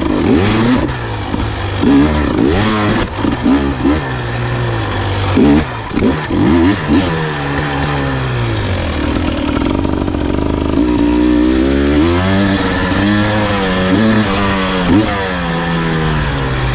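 Engine running and revving up and down repeatedly, its pitch rising and falling every second or so, with steadier stretches between.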